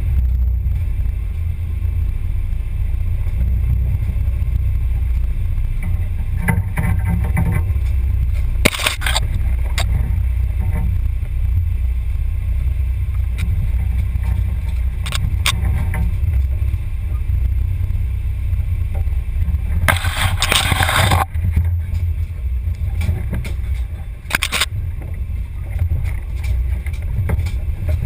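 Onboard sound of a radio-controlled crawler driving a rough forest trail: a steady low rumble from the body-mounted camera, broken by brief louder rushes of noise about nine seconds in and for about a second around twenty seconds in.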